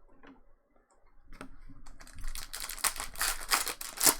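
A stack of chrome trading cards being flipped through by hand, making rapid, irregular clicks and rustles that grow dense from about two seconds in.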